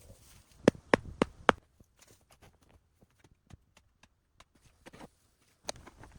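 Four sharp knocks in quick succession about a second in, then scattered light clicks and ticks, and another knock near the end.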